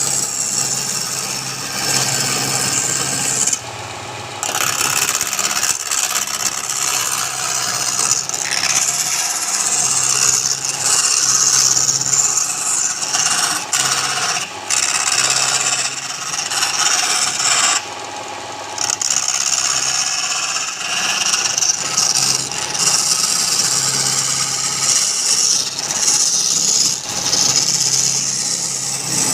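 A turning tool working wood on a spinning wood lathe: a continuous harsh scraping hiss over the low hum of the lathe motor, letting up briefly twice.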